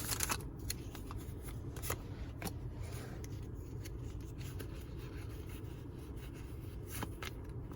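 Pokémon trading cards being handled and slid against one another, with a few faint light clicks and rubs over a steady low background.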